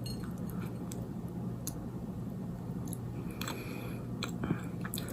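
Close-miked chewing of a soft cinnamon roll: scattered wet mouth clicks and smacks, with a steady low hum underneath.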